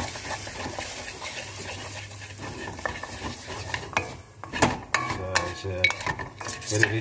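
Noodles being stir-fried in a wok: a steady sizzle, with a spatula scraping and knocking against the pan. The knocks come thicker and louder in the second half.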